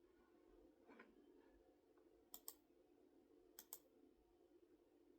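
Near silence with faint clicking: two quick pairs of sharp clicks, over a low steady room hum.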